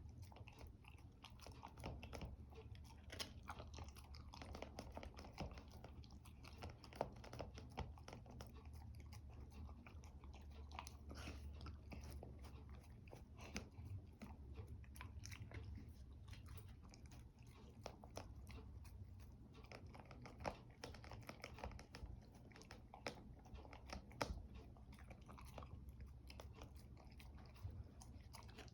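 A dog chewing food, with irregular crunches and sharp clicks of the teeth, several a second, a few of them louder.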